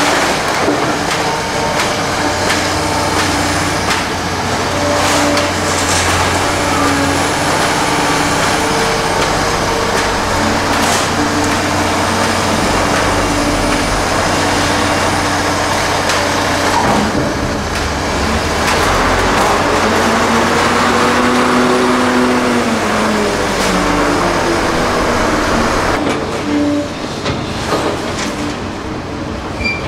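Liebherr 946 excavator working under load: its engine and hydraulic tones rise and fall with the digging, and knocks and cracks of demolition debris breaking come through at intervals.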